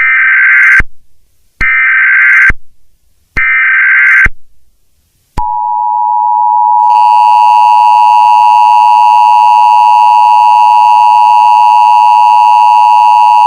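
Start of an Emergency Alert System alert: three short bursts of SAME header data tones, evenly spaced, then a long steady attention tone beginning about five seconds in and growing fuller about a second and a half later.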